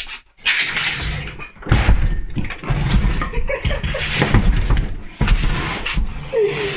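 Heavy refrigerator being tilted and rolled or walked across the floor: continuous rumbling and scraping with repeated knocks and thuds, starting just after a brief lull.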